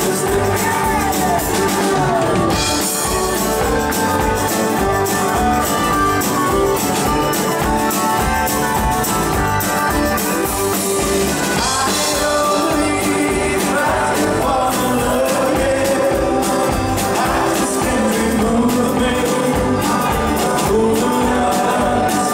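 Live band playing a rock and roll song, with drums, bass guitar, electric and acoustic guitars and accordion, and singing.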